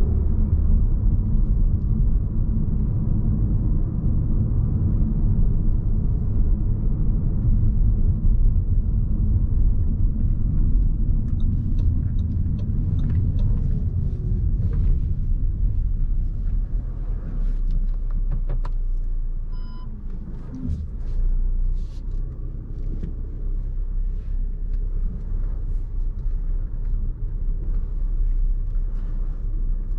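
A 2018 Audi Q3's 1.4-litre turbocharged four-cylinder petrol engine and tyres making a steady low rumble while driving over a rough, unpaved road. Scattered knocks and clicks come in from about a third of the way in, and a short beep sounds about two-thirds of the way in.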